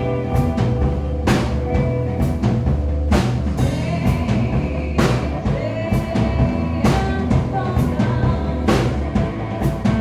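Live band playing, led by a drum kit with a cymbal crash about every two seconds over heavy sustained low notes.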